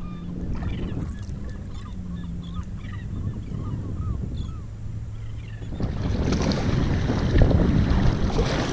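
Birds calling in many short chirps over a low steady engine drone and wind on the microphone. About six seconds in, loud rushing water and wind noise take over as the kayak moves through the water.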